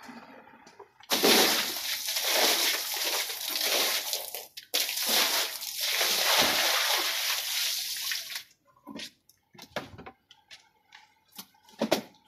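Water dumped onto a rug and splashing over it and the floor in two long dousings, the first from about a second in and the second just before five seconds. After about eight seconds only scattered soft rustles and knocks follow as the wet rug is rolled up.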